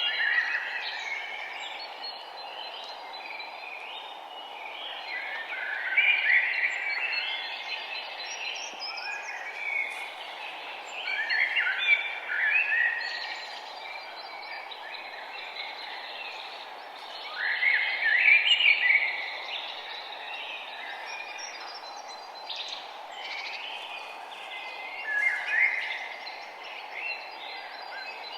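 Birds singing at sunrise over a steady background hiss, with a louder bird's chirping phrase returning about every five to six seconds and fainter calls in between.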